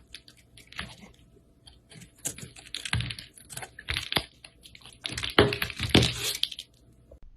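Crunchy slime being squeezed and worked, giving runs of crackling clicks and pops that come in clusters, loudest about five to six seconds in, then stop shortly before the end.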